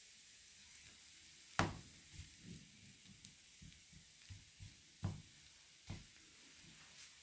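Hands patting, lifting and pressing a thin sheet of dough in a nonstick frying pan: faint soft taps and knocks against the dough and pan, the sharpest about a second and a half in and two more later on, over a steady faint hiss.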